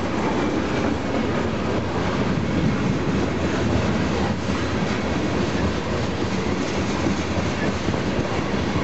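Tank cars of a freight train rolling past, a steady rumble of steel wheels running on the rails.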